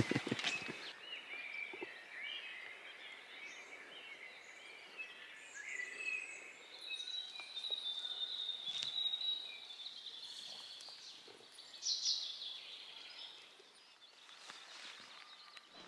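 Wild birds calling over a faint outdoor hiss: scattered short chirps and whistles, with a brighter run of calls about twelve seconds in. A couple of sharp knocks sound right at the start.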